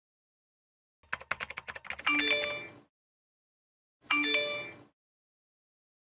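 Laptop keyboard typing, a quick run of key clicks, followed by a short bright electronic chime of a few notes that sounds twice, about two seconds apart.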